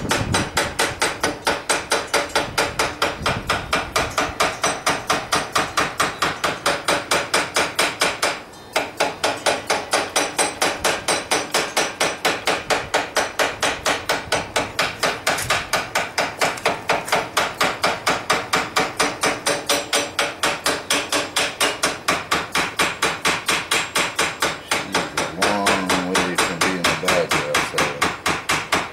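Hand hammer striking a red-hot railroad spike held in a vise, a fast, even run of about four blows a second with a brief pause about eight and a half seconds in: forging the spike's head into shape.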